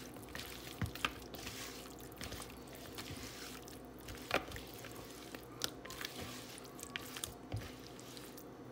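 Silicone spatula stirring raw shrimp in a spice marinade in a plastic bowl: wet squishing with irregular light clicks and taps, the sharpest about a second in and a little past the middle.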